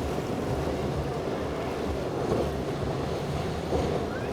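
Steady wind noise on the microphone mixed with the wash of waves in the inlet.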